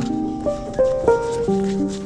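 Background music: a melody of short notes stepping up and down, with a lower note held under it in the second half.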